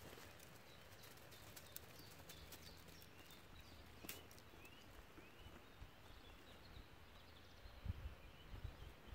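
Quiet woodland ambience with a small bird repeating short, high chirps, and a few low thuds near the end.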